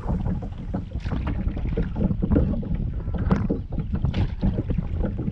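Double-bladed kayak paddle dipping and splashing in the river, about one stroke a second, over a low rumble of wind on the microphone.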